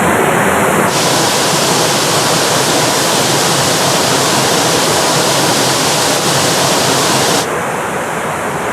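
Watson Falls, a waterfall, rushing steadily as a loud, even wash of falling water. The hiss turns suddenly brighter about a second in and drops back just as suddenly near the end.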